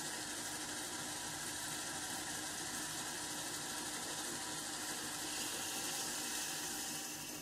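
An older hobby lathe running under power: a steady, even machine hum with a hiss above it.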